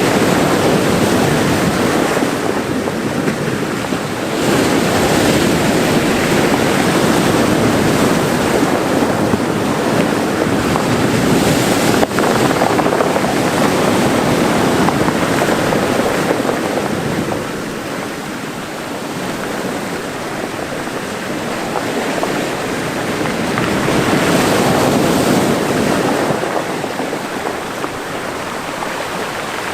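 Mediterranean Sea waves washing into a small cove: a continuous rush of surf that swells and eases, softer for a few seconds past the middle and again near the end.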